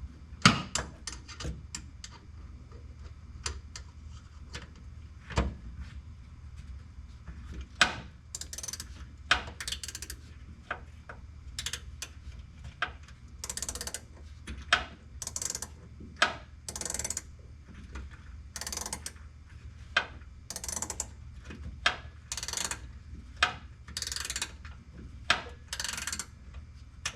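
Hand ratchet wrench clicking as it is worked back and forth on a fastener. A few separate clicks and knocks come first, then a steady run of short ratcheting strokes about every 0.7 seconds.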